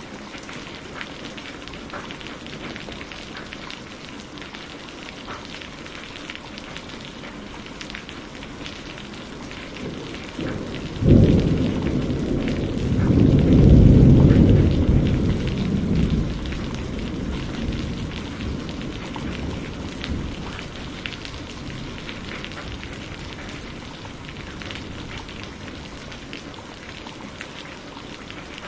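Steady rain falling throughout. A thunderclap breaks suddenly about eleven seconds in, swells into a low rumble a few seconds later, then dies away over several seconds.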